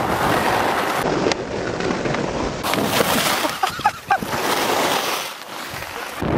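Wind rushing over the microphone of a skier's camera, mixed with skis scraping and hissing over packed snow at speed. A few short squeaky pitched sounds come about four seconds in, around a fall on the piste.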